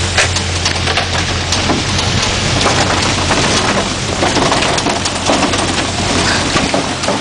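Sound inside a moving vehicle: a dense, steady hiss of road and tyre noise with many scattered knocks and rattles, over a low engine hum that weakens about a third of the way in.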